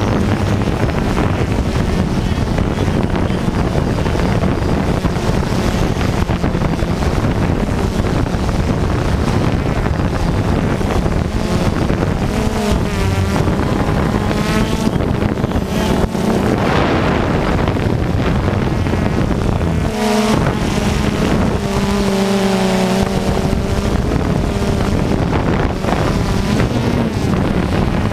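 Radio-controlled off-road cars running laps on a dirt track, their motors rising and falling in pitch as they accelerate and brake, with wind buffeting the microphone.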